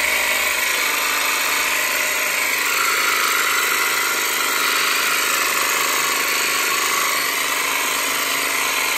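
Makita DJV181Z 18 V cordless jigsaw with a brushless motor, running steadily with no load, its blade stroking freely in the air: a continuous mechanical whine.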